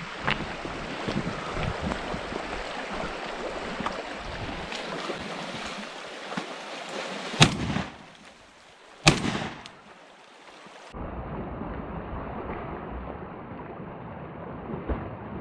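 Muddy mountain stream rushing steadily, then two shots from a Barak BR99 semi-automatic 12-gauge shotgun, about a second and a half apart, about halfway through. The stream's rushing goes on after the shots.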